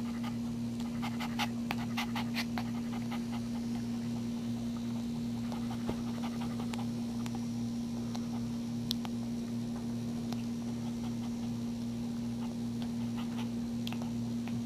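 A whelping mother dog panting in quick short breaths, most busily in the first few seconds, over a steady low electrical hum.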